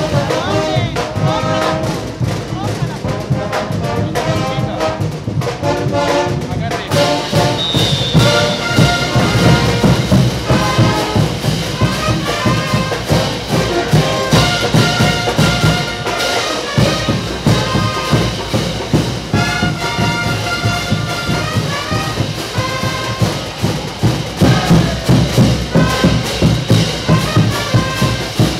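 Brass band, with sousaphones among the horns, playing caporales dance music: the brass carries the melody over a steady drum beat.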